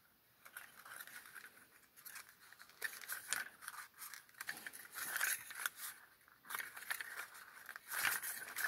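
Accordion-folded paper strips rustling and crinkling as hands overlap and press the two strips together at their glued ends, in short irregular bursts starting a few seconds in.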